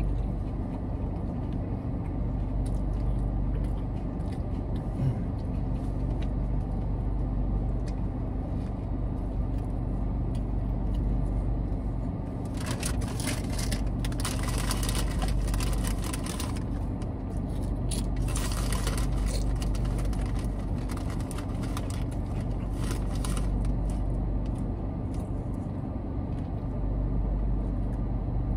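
Crinkling of a plastic chip bag being handled, in two spells about twelve and eighteen seconds in. Under it, a steady low hum of the car idling, heard inside the cabin.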